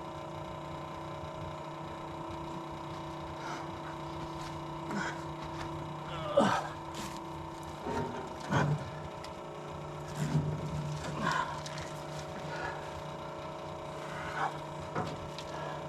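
Steady hum of the electric blower fan that feeds air to the offset smoker's firebox, with several brief sounds that bend up and down in pitch scattered through the middle and later part.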